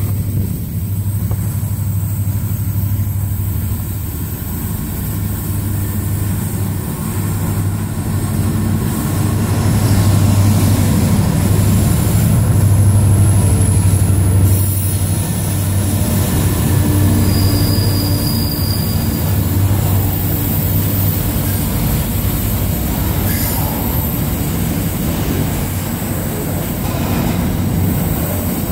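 Two diesel-electric freight locomotives, led by NR class NR85, pass with a deep, steady engine drone that is loudest about halfway through. Freight wagons then roll by, with thin high-pitched wheel squeal over the rumble.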